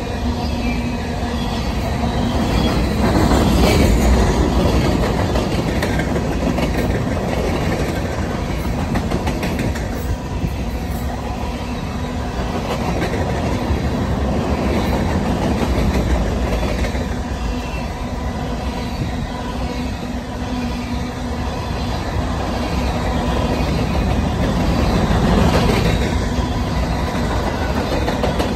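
Covered hopper cars of a freight grain train rolling past at track level: a steady rumble of wheels on rail. It swells louder about four seconds in and again near the end.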